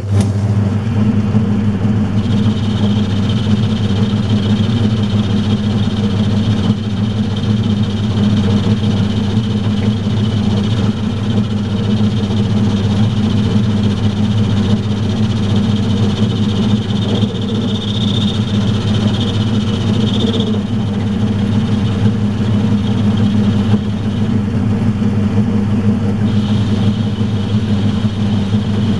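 Metal lathe switched on and running steadily with a low hum while the sleeve is turned down. A higher whine joins about two seconds in, likely the tool cutting, and drops out for a couple of seconds near the end.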